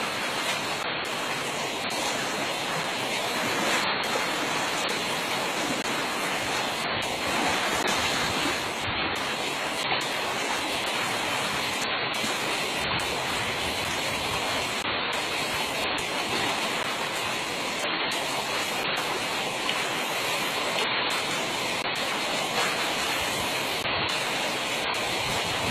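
Steady rushing of fast-flowing stream water running through a narrow channel.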